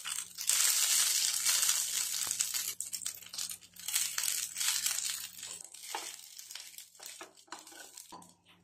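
Cooked rice sizzling in hot oil in a nonstick frying pan while a plastic rice paddle scrapes and breaks it up. The sizzle is loudest in the first few seconds, then thins into separate scrapes and fades.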